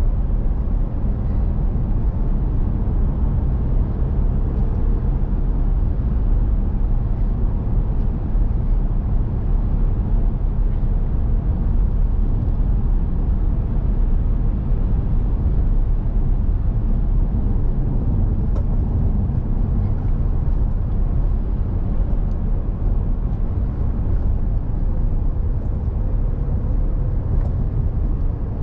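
Steady low rumble of a vehicle being driven on the road: engine and tyre noise, unchanging throughout.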